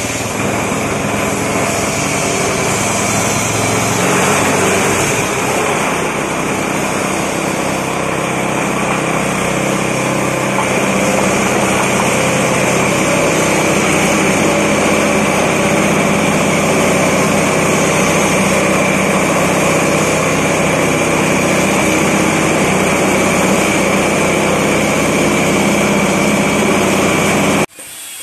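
Grinding mill running under load as a mix of rice husk and whole corn cobs is fed through it to be ground into bran. It makes a loud, steady machine drone with a constant high whine, grows a little louder a few seconds in and again around a third of the way through, and cuts off suddenly just before the end.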